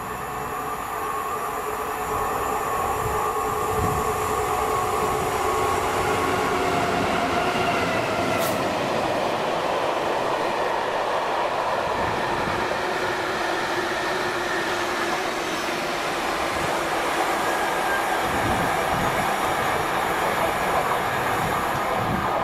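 Freightliner Class 66 diesel-electric locomotive, its EMD two-stroke V12 engine running, passing at speed at the head of a long train of hopper wagons. Its steady whine falls in pitch as it goes by, about seven seconds in, and the wagons' wheels then run steadily along the rails.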